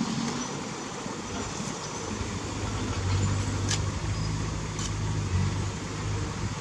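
Heavy diesel engine of earthmoving machinery running steadily, its low hum growing stronger about two seconds in, with two short ticks in the middle.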